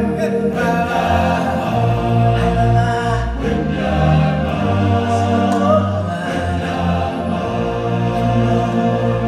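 Stage-show music with a choir singing over a deep bass line.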